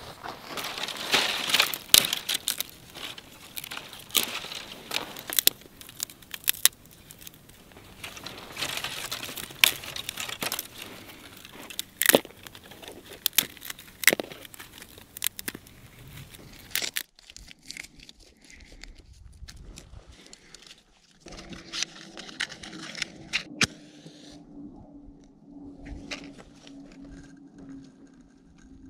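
Dry sticks and twigs snapping by hand, a run of sharp, irregular cracks. About 17 seconds in the level drops suddenly to softer rustling and crinkling of dry twigs and grass being packed together as kindling.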